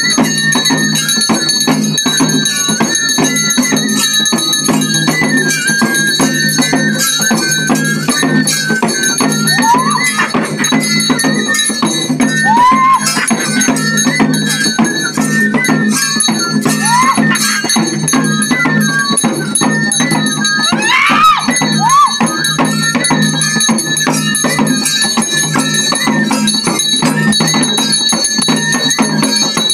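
Traditional ritual music: drums beaten in a fast, dense rhythm with jingling cymbals or bells ringing over them, and a wind instrument holding a high, stepping melody line. A few short swooping calls rise and fall over the top.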